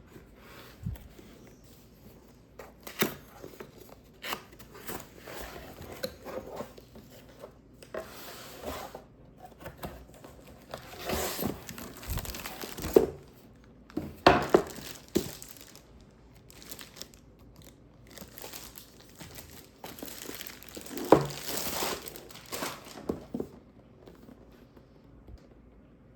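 Crinkling and rustling of paper or plastic being handled, in irregular bursts with sharp clicks and knocks, busiest around the middle and again near the end.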